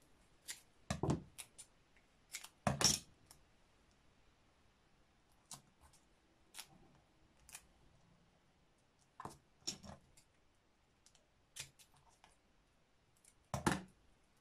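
Scissors snipping double-sided tape, then scattered clicks and taps as the scissors and tape roll are handled and set down on a cutting mat. The loudest sounds come about a second in, near three seconds and near the end, with quiet room tone between.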